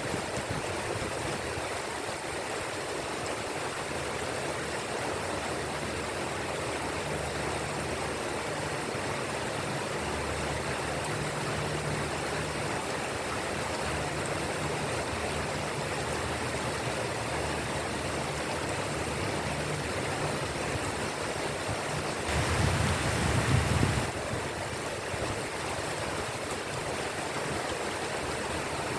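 Steady rain falling, an even hiss with no break. A little past two-thirds in, the sound swells louder and deeper for under two seconds, then settles back.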